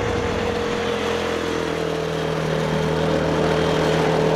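Zontes T310 Adventure's single-cylinder engine running at a steady road speed, its note sinking slightly, under a rush of wind over the microphone.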